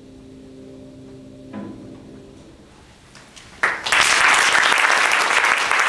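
The last held notes of a piece fade away, then audience applause breaks out suddenly a little past halfway and carries on loudly.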